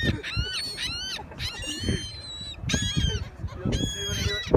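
Seagulls calling over and over in short, high, squawking cries, several birds overlapping at times.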